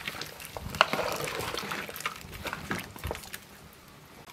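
Ladle stirring chunks of vegetables and chicken in a large metal pot of curry, with a few knocks of the ladle against the pot, going quieter near the end.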